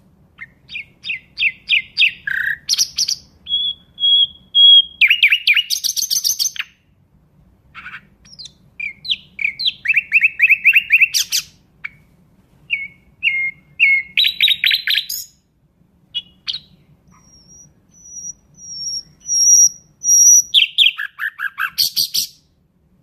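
Nightingale singing: loud, varied phrases of rapid repeated notes and buzzing trills, separated by short pauses. Near the end comes a run of thin, high drawn-out whistles, followed by a fast trill.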